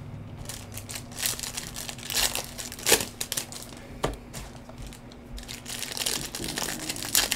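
Foil trading-card pack wrappers crinkling and crackling as gloved hands handle and open them, with a few sharper crackles, over a faint steady low hum.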